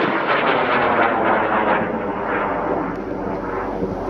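High-power amateur rocket motor under thrust, a loud rough crackling rumble that fades slowly as the rocket climbs away.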